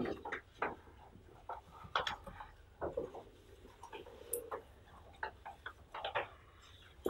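Laptop keyboard keys being pressed: a dozen or so light clicks and taps at an irregular pace, a few with a short rustle.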